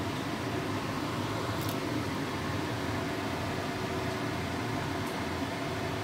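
Steady mechanical hum with an even hiss, like a running fan, with a faint short tick twice.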